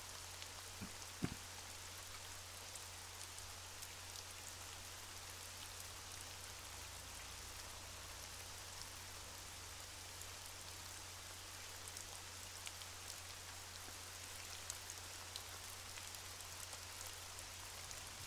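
Faint underwater ambience: a steady crackling hiss made of many tiny clicks, over a low steady hum, with one sharper click about a second in.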